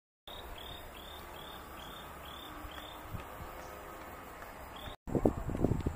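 An insect chirping in a regular series, about two high chirps a second, over a steady outdoor background. About five seconds in the sound cuts off, and about a second of loud, low, uneven thumping rumble follows.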